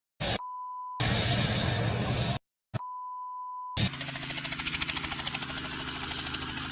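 A steady high beep tone, cut by bursts of loud rushing noise. From about four seconds in, a small helicopter runs on the ground: a steady engine hum with the fast, even chop of its turning rotor.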